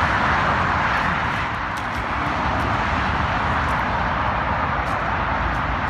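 Steady noise of motorway traffic, an even wash of tyre and engine noise with no single vehicle standing out.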